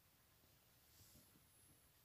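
Near silence, with a faint rustle of a book's paper page being turned about a second in.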